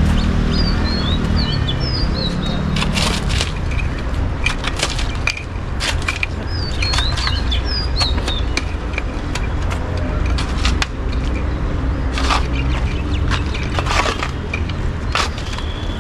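Outdoor ambience: a steady low rumble with scattered sharp clicks and knocks. Small birds chirp in two short flurries, one near the start and one about seven seconds in.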